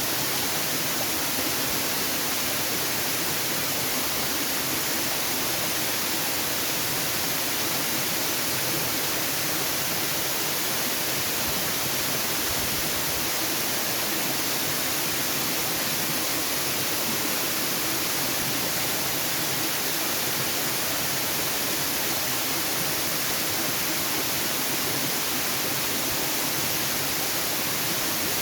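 Waterfall: a steady, unbroken rush of falling water, hissy and even throughout.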